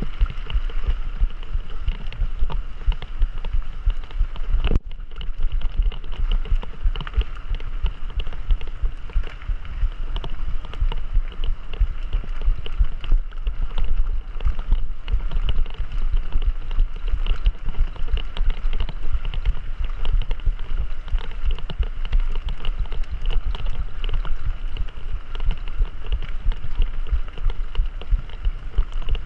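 Wind buffeting the microphone over a steady low rumble and constant rattling, from a mountain bike being ridden over a rough trail.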